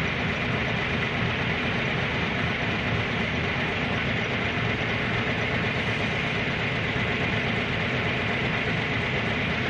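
A vehicle engine running steadily, an even drone with no change in pitch.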